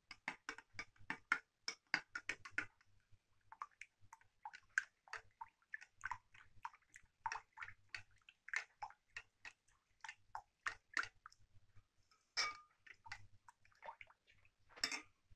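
Metal spoon clinking and scraping against a ceramic bowl while stirring dry yeast into warm water: about five quick clinks a second at first, then slower and irregular, with a louder knock near the end.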